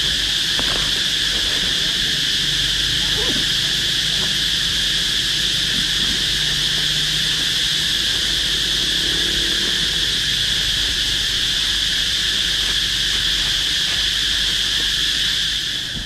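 A steady, high-pitched chorus of insects shrilling without a break, even in level throughout.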